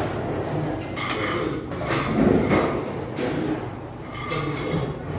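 Metal utensils and kitchen scissors clattering against earthenware soup pots and bowls at a meal table, in uneven bursts.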